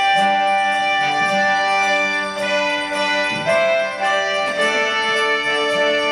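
A group of children playing a melody together on plastic recorders, in held notes that change every second or so, over a lower-pitched accompaniment.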